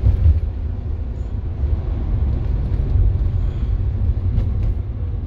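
Steady low rumble of a moving Toyota car heard from inside the cabin: engine and tyre noise while driving on the road.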